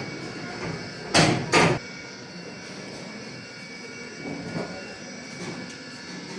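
36-inch Royal ceiling fan running, a steady hum with several faint steady whining tones over a rushing hiss. Two short, loud noise bursts come about a second in.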